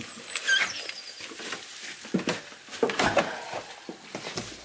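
Rustling and soft knocks of sneakers being pulled on and laced on a carpeted floor, with a faint high falling chirp in the first second.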